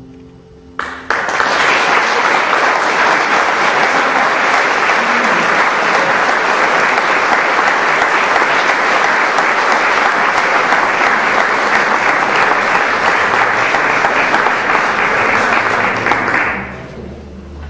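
The last piano chord fading out, then an audience applauding: the clapping breaks out about a second in, holds steady and full, and dies away about a second before the end.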